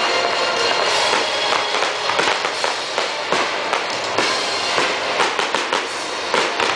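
Fireworks going off in rapid succession: many sharp bangs and crackles over a continuous fizzing hiss, with music playing underneath.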